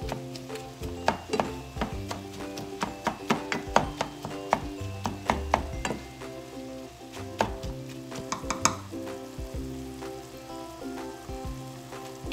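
Silicone spatula stirring ground beef and onions in a frying pan, with many quick clicks and taps against the pan over a faint sizzle. Soft background music plays underneath.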